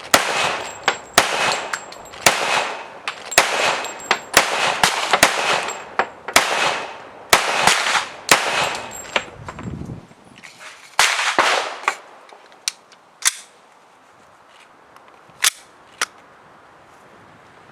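Heckler & Koch Mark 23 .45 ACP pistol fired in a steady string of single shots, roughly one a second, each with a short echoing tail. The shooting stops after about twelve seconds, leaving a few fainter, sharper cracks near the end.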